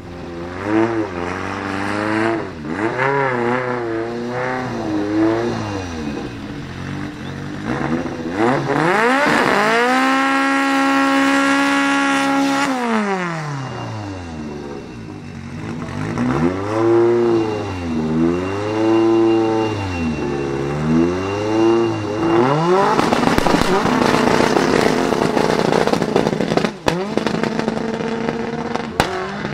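Turbocharged Fiat Uno's four-cylinder engine revved up and down repeatedly, then held high for about four seconds while the front tyres spin in a smoky burnout, before dropping back. After more rev blips it launches hard, the pitch climbing under a loud wash of tyre and engine noise for the last several seconds.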